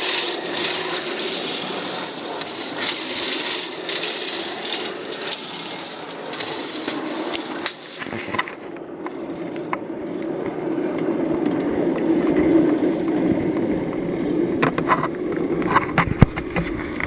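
A small trolley-train carrying queen-bee mating boxes rattles as it is moved along for about eight seconds, then the rattle stops and a lower steady hum remains with a few scattered clicks.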